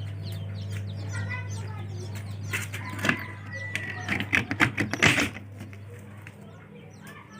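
Steady low hum of a hatchery egg incubator running, with chicks peeping about a second in. A burst of rattling knocks and clatter follows from about two and a half to five seconds in.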